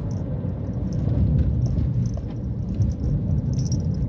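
Steady low rumble of a car on the move, heard from inside the cabin: engine and tyre noise on an asphalt road.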